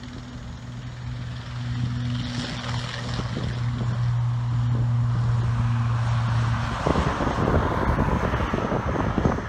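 ATR 72-600 turboprop's Pratt & Whitney PW127M engines and propellers on the runway: a steady low propeller hum that grows louder, giving way about seven seconds in to a louder, broad rushing engine noise.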